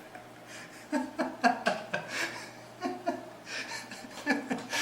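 A man laughing to himself, several short runs of quick voiced pulses with pauses between them.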